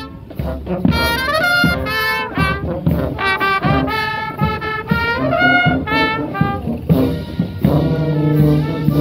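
Marching band playing a brass tune on saxophones and trumpets over drum hits, with low sousaphone notes coming in near the end.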